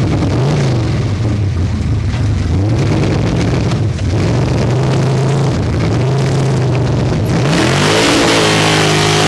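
Ford sand drag truck's engine revving up and down several times, then climbing about three-quarters of the way through to a loud, sustained high rev.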